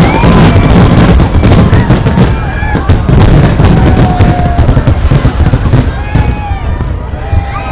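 Aerial fireworks bursting in a dense, rapid barrage of booms and crackles, thinning out over the last couple of seconds. Crowd voices rise over the bangs.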